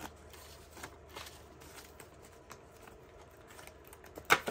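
Paper banknotes rustling and faint ticks as bills are handled and slipped into a clear vinyl pouch of a ring-binder cash wallet, with one sharp click near the end.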